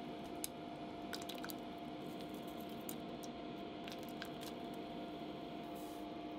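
Steady hum of a kitchen appliance with a faint hiss underneath, and a few light clicks and soft squishy sounds of utensils working in a pot of miso soup.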